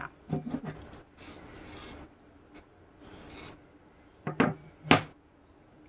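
Wooden frame loom handled and turned over on a wooden tabletop: soft scraping and rubbing of wood on wood, with two sharp knocks about half a second apart near the end as the frame is set down.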